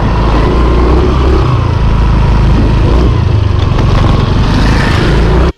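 Motor scooter riding along at a steady pace, its small engine running under a loud, steady rumble of wind and road noise on the microphone. The sound cuts out for a moment near the end and then carries on.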